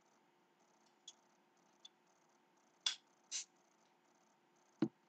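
Crown cap being pried off a glass beer bottle with an opener: a couple of light clicks, then a sharp snap as the cap comes off and a short hiss about half a second later. A dull knock near the end.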